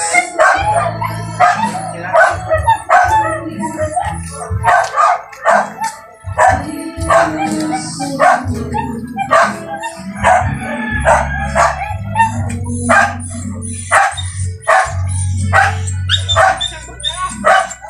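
A dog barking over and over, about two barks a second, with music playing underneath.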